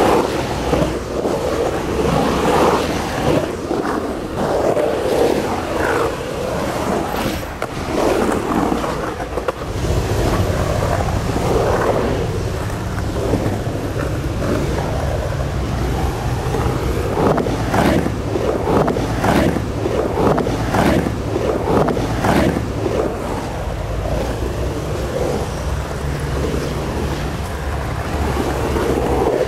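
Skateboard wheels rolling on a concrete bowl, a rushing rumble that swells and fades as the skater carves up and down the walls, with a few sharp clacks in the second half. Wind buffets the microphone from about a third of the way in.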